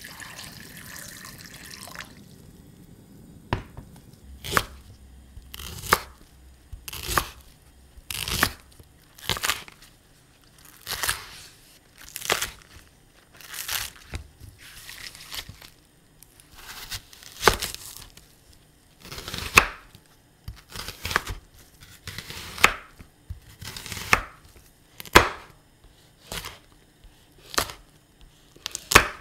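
Water poured into a glass bowl for the first two seconds. Then a chef's knife cuts through green onion and red chili on a wooden cutting board, one crisp stroke about every second, each cut ending in a knock on the board.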